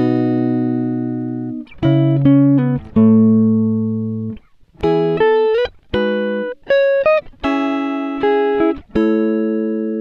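Background music: a guitar plucking a slow melody of single notes and chords, each note starting sharply and ringing out as it fades.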